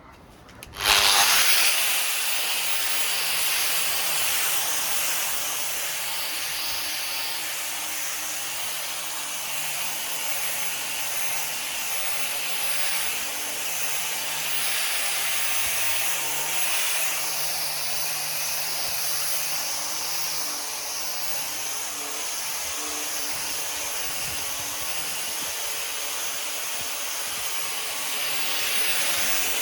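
Electric orbital sander starting up about a second in, then running steadily on a wooden table top: a steady hiss of sandpaper on wood over a low motor hum.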